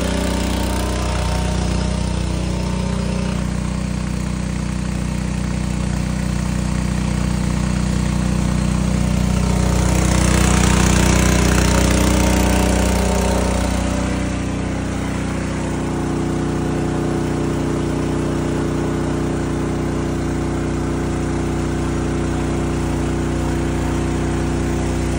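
Small gasoline engine of a portable trash pump running steadily, pumping water out of a sunken boat. A hissing rush swells for a few seconds midway.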